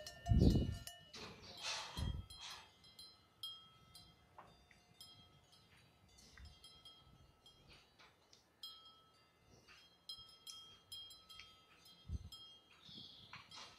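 Light metallic clinking with short ringing tones that recur over and over at the same few pitches, and a few soft low thumps.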